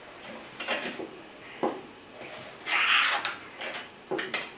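Plastic toy building bricks clicking and rubbing as pieces are handled and pressed onto a model, with a few sharp clicks and a louder rustling scrape about three seconds in.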